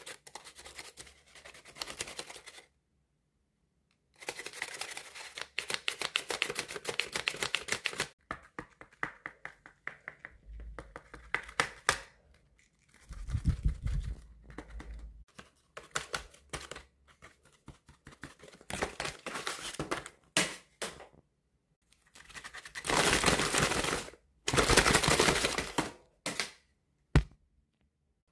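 Paper dragon puppet's folded paper jaws being snapped open and shut again and again, in bursts of rapid crinkly paper clacking separated by short pauses. A few dull low thumps come about halfway through.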